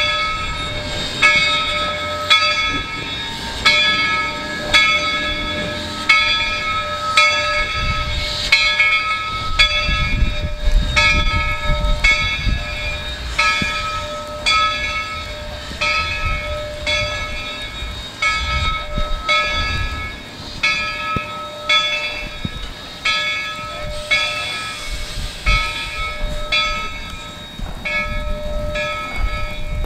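Steam locomotive bell ringing steadily, about one ringing stroke a second, with a low rumble of the train rolling by from about eight seconds in.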